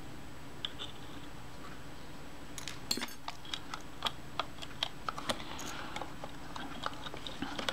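Scattered light clicks and taps of small metal camera parts as the front door of a Kodak Retina I camera is handled and worked off its hinge. Sparse at first, more frequent from about two and a half seconds in.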